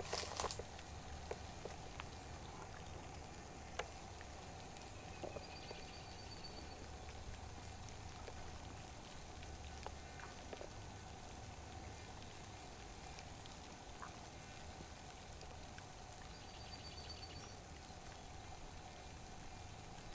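Faint trickling water with scattered small drips and clicks, a brief cluster of louder clicks right at the start. A short high trill sounds twice, about five seconds in and again near the end.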